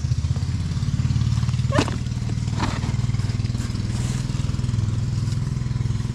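A small engine, just started, running steadily at idle with an even low hum. Two brief clicks sound about two and three seconds in.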